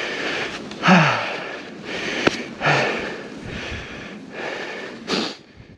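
Heavy, rhythmic panting close to the microphone, about one breath a second, with a couple of short voiced grunts: a person out of breath from exertion.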